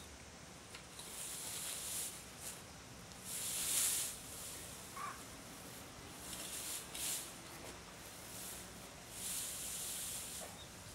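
Dry dead grass being dragged and scraped across a lawn with a long-handled tool: a series of rustling swishes, the loudest about four seconds in.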